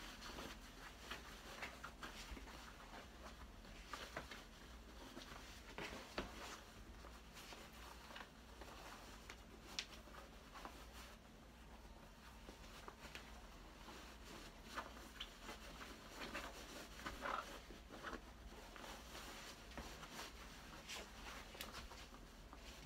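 Faint rustling and swishing of cloth, with soft scattered brushes and clicks, as a half-width obi is wound around the waist and pulled tight.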